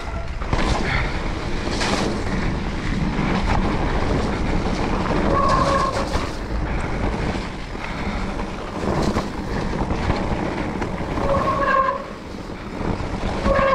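Specialized Turbo Levo electric mountain bike riding fast down a wet dirt trail: steady tyre and wind noise with knocks from bumps. The disc brakes give short squeals, like a horn, about five seconds in and near twelve seconds, and a louder squeal starts at the very end.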